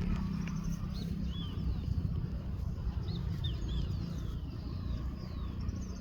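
Birds chirping, with many short chirps and falling whistles, over a steady low rumble.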